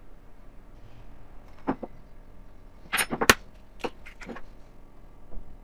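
Handling an egg over a glass baking dish: a few short, sharp clicks and knocks as an egg is cracked and added to a stuffed pepper. The first comes at about a second and a half in, then a quick cluster near the middle, the loudest about three seconds in.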